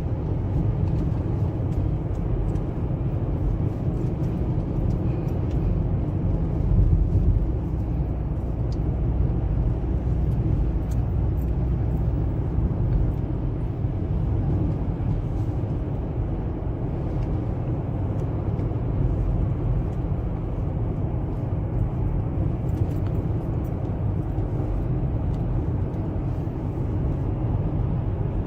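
A car being driven, its engine and tyres giving a steady low road rumble with no sharp events.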